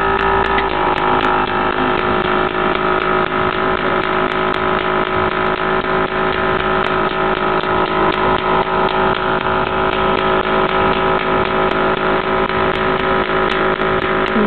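Small electric suction pump running with a steady hum, drawing ink out of an Epson ink cartridge through a thin tube.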